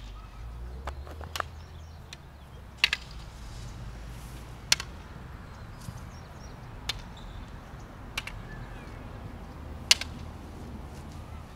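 Wooden tai chi swords clacking together in partner sword practice: sharp, dry knocks every second or two, a few coming in quick pairs.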